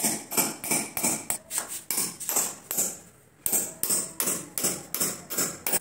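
Small hammer tapping on a steel door frame, about three sharp blows a second with a short metallic ring after each, pausing briefly about three seconds in.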